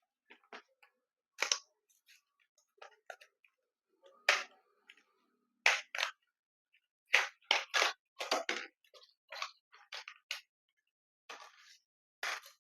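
Irregular sharp clicks, taps and brief scrapes from hands handling a 2 TB Kingston NVMe SSD and the motherboard's M.2 fittings, some clicks close together in quick runs.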